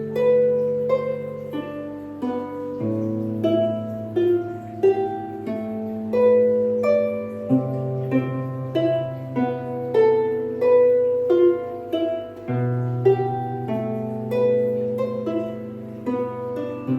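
Solo harp playing a slow, calm melody of plucked notes, about two a second, over low bass notes that ring on and change every few seconds.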